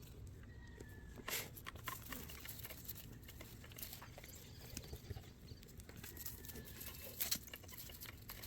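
Goat eating hay: scattered rustles and crunches of the hay, with a couple of louder clicks or knocks.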